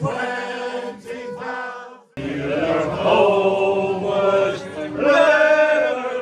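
A group of voices singing a shanty together, unaccompanied. The singing breaks off for an instant about two seconds in, then carries on.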